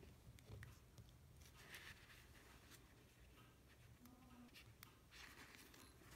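Near silence with faint scratching, rustling and small clicks of fingers working at the O-ring ports of an aluminium hydraulic valve block on a paper towel, a little louder about a second and a half in and again about five seconds in.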